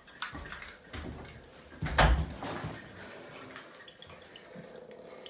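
Handling and walking noise with one loud thump about two seconds in, then faint drips of water falling from a kitchen mixer tap's spout into a stainless steel sink: the last water running out of the tap with the supply shut off.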